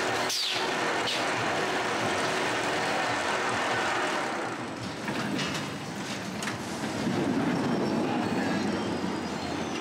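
Steel roller coaster train running along its track, a steady rumble with a falling whoosh about half a second in. The rumble grows louder for a couple of seconds near the end as the train passes close.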